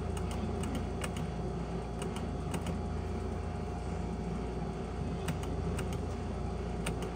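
Skill game machine clicking: sharp clicks in small clusters of two or three, over a steady low hum and a faint steady tone.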